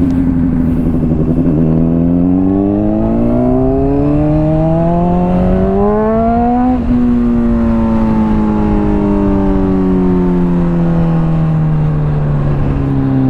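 Honda CBR600RR's inline-four engine through a Hotbodies slip-on exhaust, revving up steadily in one long pull, then the throttle is rolled off about halfway through and the revs fall away slowly as the bike slows.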